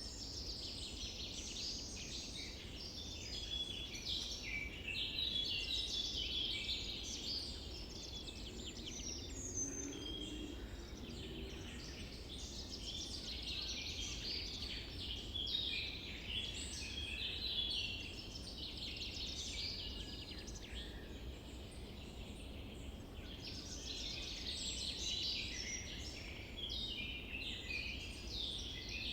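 A chorus of many small birds chirping and trilling continuously over a low, steady background rumble.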